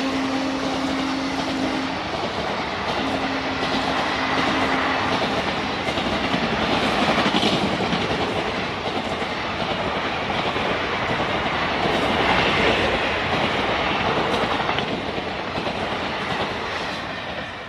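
A long rake of Indian Railways ICF passenger coaches rushing past at speed, with wheels clattering over the rail joints and a steady rush of noise. The receding locomotive's horn tone lingers in the first few seconds. The noise falls away near the end as the last coach goes by.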